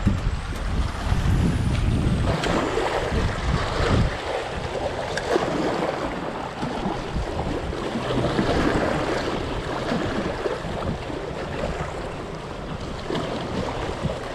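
Choppy water lapping and splashing against shoreline rocks, with wind buffeting the microphone, heaviest in the first few seconds.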